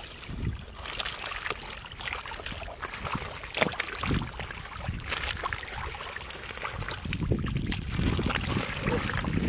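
Hands digging and scooping through wet mud and shallow water, with irregular squelching and splashing. There is one sharper splash about three and a half seconds in, and the splashing gets busier near the end.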